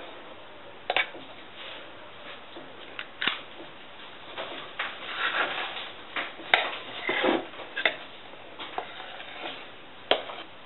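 A metal utensil scraping mashed potato out of a stainless steel pot, with several sharp knocks and clinks of metal on the pot, and scraping in the middle as scoops of potato are put onto a plate.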